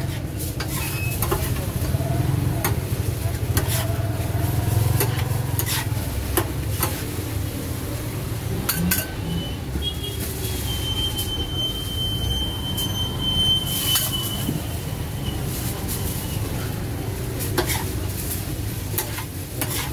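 Kitchen clatter at a doner kebab stand: scattered clinks and knocks of metal utensils and trays, with some sizzling, over a steady low hum.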